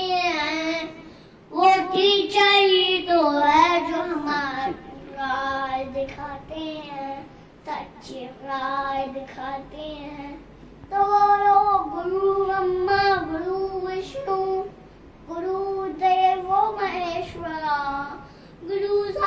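A young boy singing a song unaccompanied, in phrases with short pauses between them.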